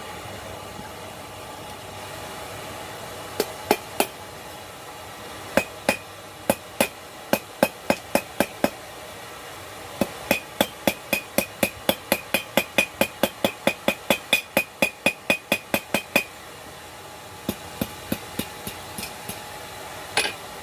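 Blacksmith's hammer striking steel on an anvil while forging a knife blade, in bursts of blows. The longest run is about three to four blows a second, with a ringing note; the last few blows are lighter.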